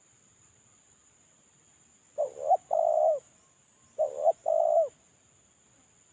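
Spotted dove (terkukur) cooing: two phrases, each a short note followed by a longer held coo. The first comes about two seconds in and the second about a second and a half later, with a faint steady high whine underneath.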